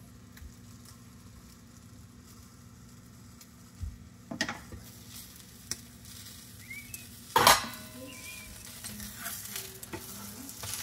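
Hot carbon steel pan being wiped out with a paper towel: a few short scrapes, the loudest about seven and a half seconds in, over faint sizzling from the pan.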